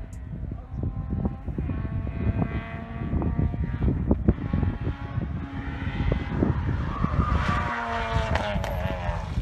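Peugeot 106 N2 hill-climb car's four-cylinder engine revving hard up the mountain road, its pitch stepping with the gear changes and climbing steeply near the end.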